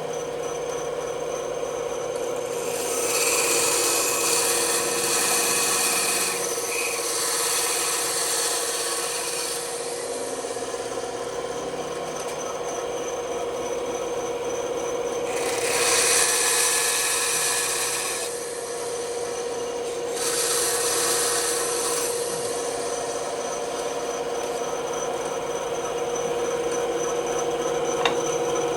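Bandsaw running with a steady hum, its blade cutting through wood in four passes of a few seconds each, with quieter running between them.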